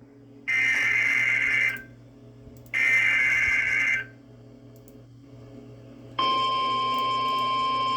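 NOAA Weather Radio Emergency Alert System activation. First come the last two of the three SAME header data bursts, each a little over a second long, about two seconds apart. After a pause of about two seconds, the steady 1050 Hz warning alarm tone starts about six seconds in. The sequence announces a new severe thunderstorm warning.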